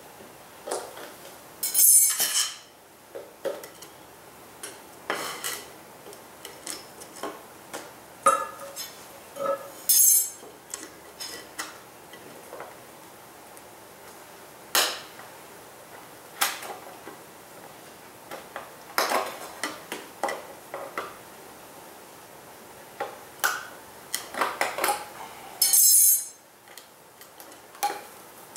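Scattered clinks, knocks and scrapes of a metal hive tool working at a wooden bee package and its round metal feeder can. There are louder, harsher rasping scrapes about two seconds in, again about ten seconds in, and near the end.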